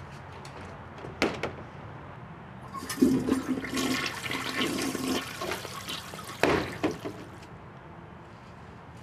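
A plastic portable-toilet door bangs shut about a second in, then a toilet flushes for a few seconds, and the door bangs open again near the end of the flush.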